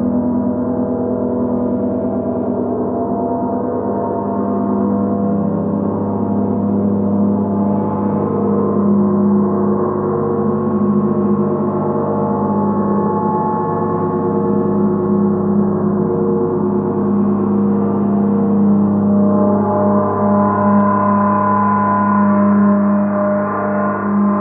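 Three gongs played in turn, blending into a sustained wash of many overlapping ringing tones with a low hum strongest throughout; the upper tones swell louder over the last few seconds.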